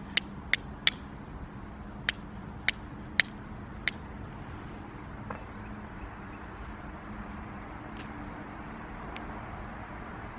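Steel striker struck against a small piece of flint: seven sharp clicks in about four seconds, then three fainter strikes spaced further apart.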